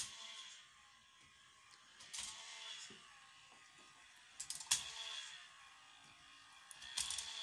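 K'nex ball machine lift running: small plastic clicks and clatters over a faint motor whir, with a louder burst of clicking about every two seconds as the lift carries a ball up the tower.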